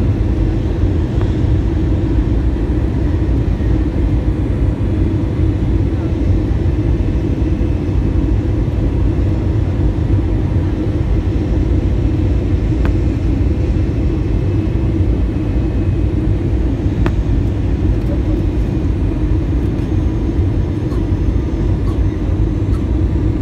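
Steady, loud cabin noise of a jet airliner on descent, heard inside the cabin: engine and airflow noise, deep and unbroken.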